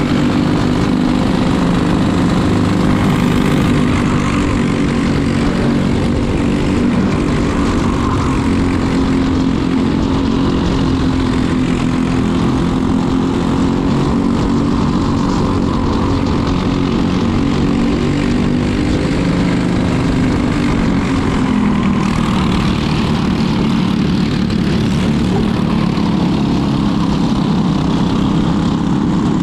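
Racing kart engine heard onboard, running hard at racing speed. Its pitch falls briefly about two-thirds of the way through and then climbs again.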